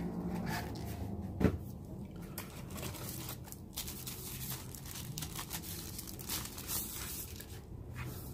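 Plastic sleeve crinkling and rustling as a tablet is slid out of it and handled over an open cardboard box, with a single dull knock about a second and a half in.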